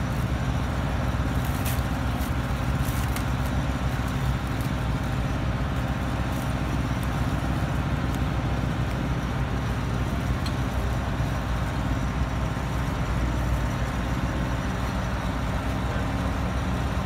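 Soil investigation drill rig's engine running steadily, a constant low drone. A few crinkles of plastic film being stretched over a wooden core box come in the first few seconds.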